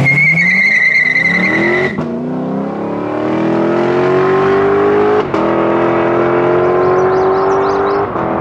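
Lexus LC 500's naturally aspirated 5.0-litre V8 accelerating hard away on full throttle. Its note climbs steadily in pitch through each gear, with quick upshifts about two, five and eight seconds in. A high steady squeal sounds over the first two seconds.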